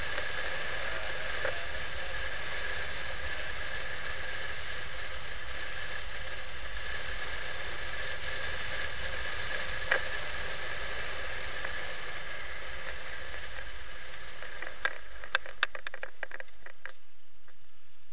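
Riding noise of a motorcycle picked up by a camera mounted on the bike: a steady rushing hiss with a thin whine and a single click about halfway through. Near the end there is a quick run of clicks and rattles, then the noise dies away as the bike slows for a junction.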